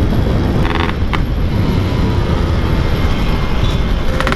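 Yamaha RX-King two-stroke engine running at speed through a Packing Power exhaust, largely buried under heavy wind buffeting on the microphone. A short sharp noise cuts in about a second in.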